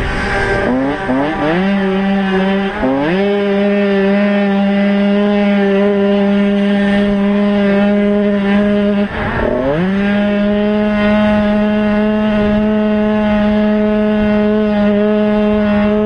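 Motocross bike engine heard from on board, running hard at high revs. The revs dip and climb back several times in the first three seconds, and again about nine to ten seconds in.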